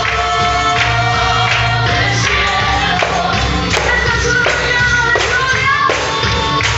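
Christian worship song with a choir singing over a band with bass and tambourine.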